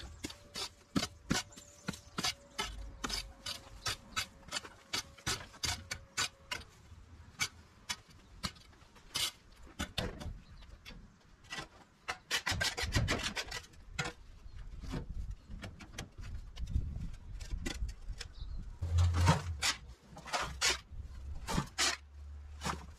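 Garden rake and shovel scraping through soil and loose weeds in quick repeated strokes, about two or three a second, with a few dull thumps.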